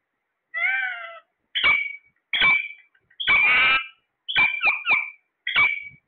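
Caged ring-necked parakeets giving a string of harsh, screeching calls, about eight in all with short gaps: a longer call falling in pitch about half a second in, a quick run of three calls past the middle, and one more near the end.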